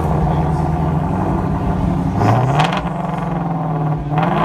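2016 Ford Mustang Shelby GT350's naturally aspirated 5.2-litre flat-plane-crank V8 idling with its exhaust valves open in performance mode. It is blipped twice: a short rev about two seconds in and another near the end.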